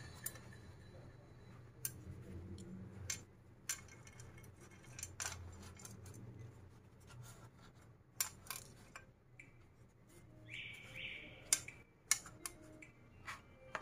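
Slices of stale, crusty bread being laid and pushed together in a frying pan: scattered dry taps and scrapes of crust against the pan and against each other.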